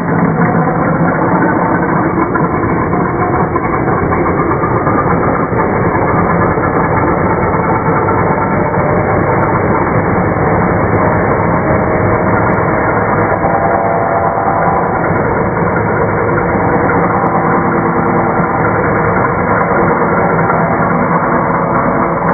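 Handheld circular saw running steadily with its blade in a pressure-treated pine board, making a continuous, even drone with no breaks.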